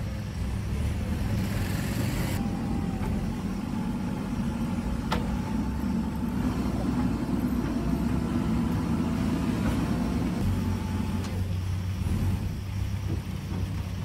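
JCB backhoe loader's diesel engine running steadily under load while the rear backhoe digs, with a single sharp clank about five seconds in.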